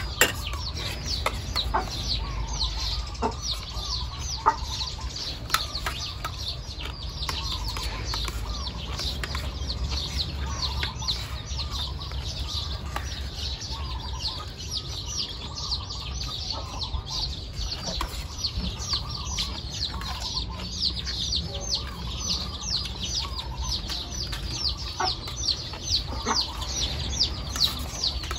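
Birds chirping in a constant, rapid stream of short falling high notes, with occasional clucks of chickens. Metal spoons clink on plates now and then.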